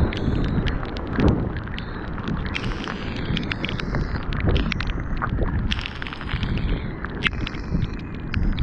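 Strong wind buffeting the microphone in a heavy, continuous rumble, with raindrops ticking sharply and irregularly on the camera.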